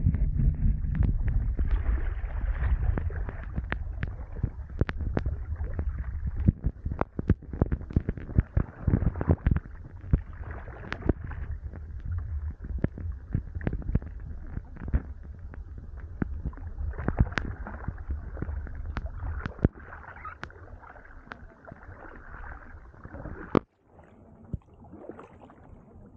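Sea kayak being paddled through brash ice and slush: many sharp clicks and knocks of ice against the hull and paddle blades over a low rumble, which is heaviest in the first several seconds. The sound drops out briefly near the end.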